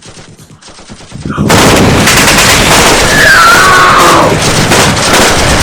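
Gunfire in a film's battle soundtrack: scattered shots at first, then a sudden jump about a second and a half in to a loud, continuous din of heavy fire.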